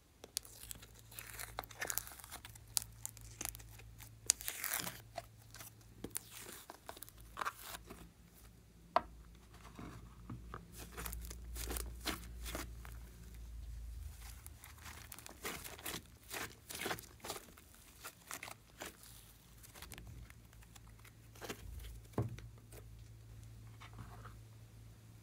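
Glossy slime being peeled from a plastic tray and squeezed by hand, giving irregular sticky crackles, pops and tearing sounds. A quiet low hum runs underneath.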